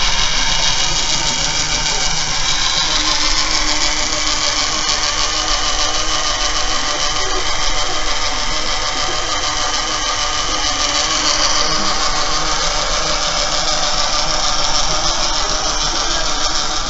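Small electric motor running steadily, turning the white wheels and wooden coupling rods of a homemade model train mechanism: a continuous mechanical whirr with no break.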